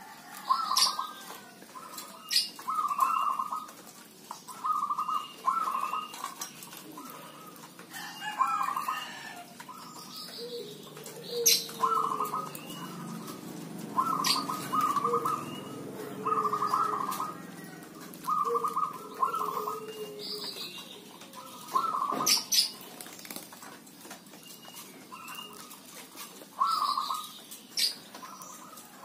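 Zebra doves (perkutut) cooing, their quick rattling phrases repeating every second or two and answering one another, with short high chirps scattered in between.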